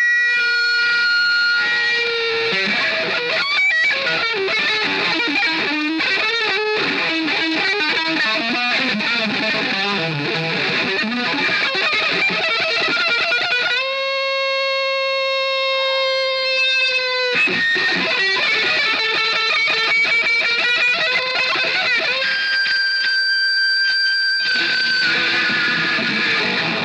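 Distorted electric guitar solo: fast runs of notes, then a long sustained note about halfway through that bends slightly at its end, then more runs and another held, higher note near the end.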